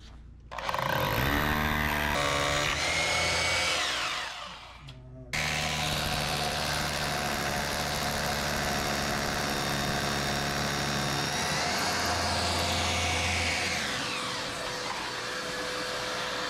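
Hammer drill boring anchor holes into a freshly poured concrete slab, with a dust-extraction vacuum running with it. The drilling comes in two long runs, broken by a short pause about four and a half seconds in.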